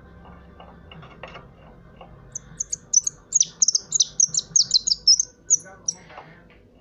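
Caged songbird, a call bird (llamador), singing a rapid phrase of high, quick chirps that lasts about three and a half seconds and begins a couple of seconds in.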